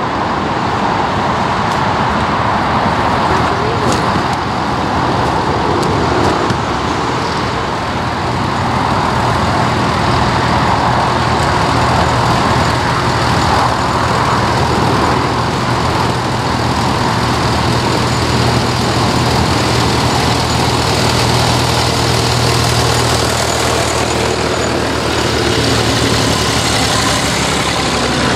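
A line of vintage tractors driving past one after another, their engines running steadily at road speed, with a car going by near the start.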